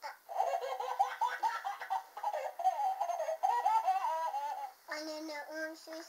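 High-pitched laughter, giggling on and on for about four and a half seconds, then a short, steadier held voice near the end.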